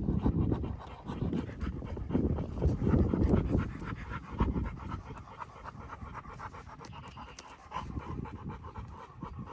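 A dog panting hard and fast close by, loudest in the first few seconds and then softer.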